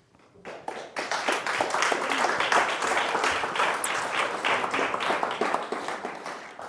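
Audience applauding: many hands clapping, starting about half a second in and dying away near the end.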